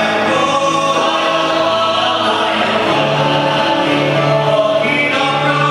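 A men's choir singing a hymn together, holding long notes.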